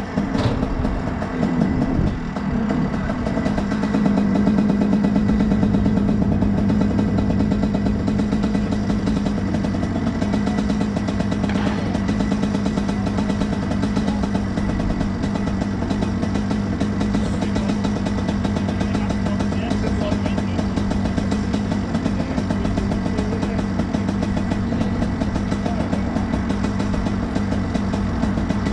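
Junior Rotax kart's 125 cc single-cylinder two-stroke engine running at a steady pitch, with a brief dip about two seconds in.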